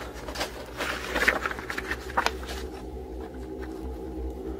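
Soft rustling and a few sharp clicks of handling during the first two seconds or so, over a steady low hum that carries on alone afterwards.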